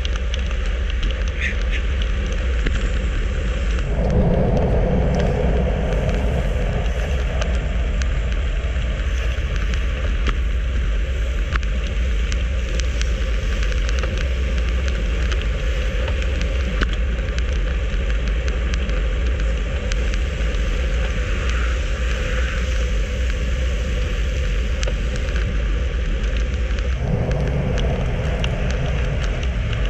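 Wind rushing over a handlebar-mounted action camera's microphone at road-bike speed of about 40 km/h, a steady low rumble mixed with tyre noise on asphalt. The rush swells louder about four seconds in and again near the end.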